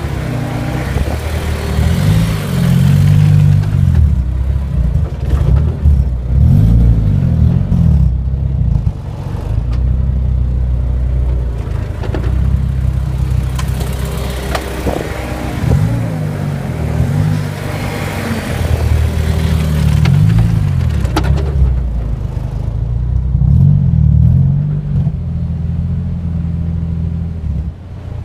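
Honda S2000's four-cylinder engine running on the move, its pitch rising and falling again and again with the throttle, with several sharp knocks along the way: the clunking of a newly installed Ford 8.8 rear differential.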